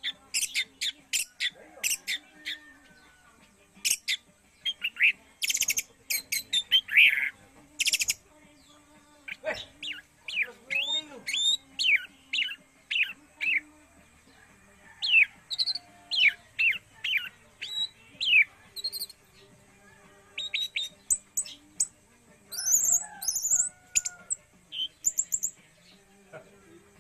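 Orange-headed thrush singing: rapid runs of sharp chirps and short falling whistles, in bursts with brief pauses.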